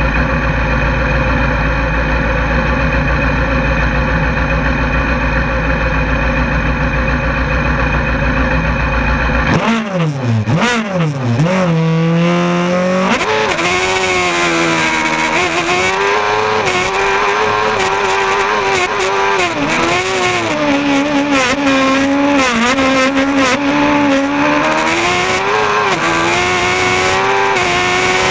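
Speed car's racing engine heard from inside the cockpit, held at a steady high rev for about nine and a half seconds, then the car sets off: the revs swoop up and down sharply a few times and then keep rising and falling with each gear change as it climbs the hill.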